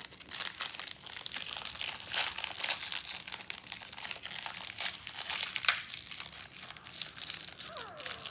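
Plastic toy packaging crinkling and crackling irregularly as it is opened and unwrapped by hand, with a few sharper crackles.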